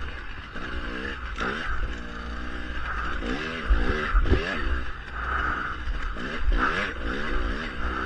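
Dirt bike engine revving up and falling back again and again as the throttle is opened and closed, its pitch climbing and dropping about eight to ten times.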